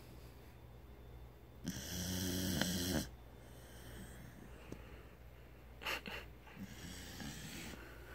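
Loud snoring. One long rattling snore about two seconds in lasts over a second, and a shorter, weaker snore comes about six seconds in, followed by fainter breathing.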